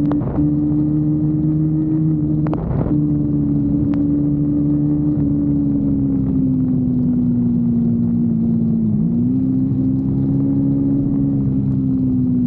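Kawasaki Versys-X 250's parallel-twin engine running at steady high revs on the move. The note breaks off briefly twice in the first three seconds, then sags slowly, dipping and recovering about nine seconds in.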